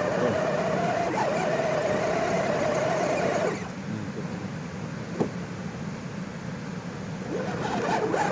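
Small electric motor and gearbox of a mini 1:12-scale RC car whining steadily, wavering a little in pitch. It stops about three and a half seconds in, a single click follows about two seconds later, and the whine starts again near the end.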